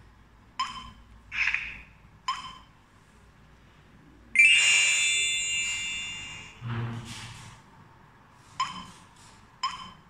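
Touchscreen alarm control panel beeping briefly at each tap, twice early and twice near the end, with a louder, longer tone about four seconds in that fades away over some two seconds, the panel's confirmation as a wireless accessory is added.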